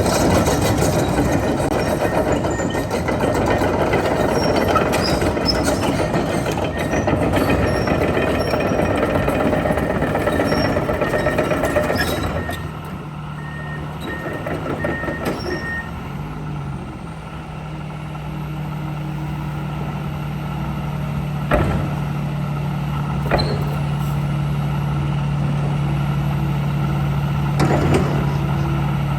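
Komatsu PC170LC-11 hydraulic excavator's diesel engine running hard under load, then about twelve seconds in dropping to a steadier, quieter run. A short series of beeps sounds soon after the drop, and a few sharp knocks come later.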